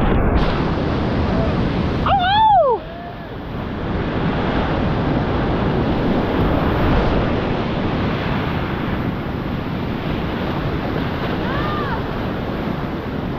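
Whitewater of a steep river cascade rushing steadily, with a short high rising-and-falling call about two seconds in.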